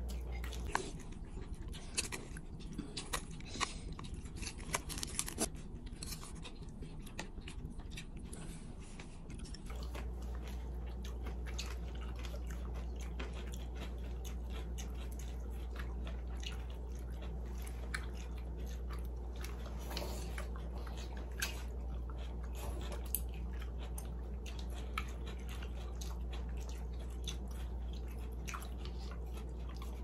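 People eating with chopsticks: chewing, with many small scattered clicks and taps of chopsticks against bowls, over a steady low hum.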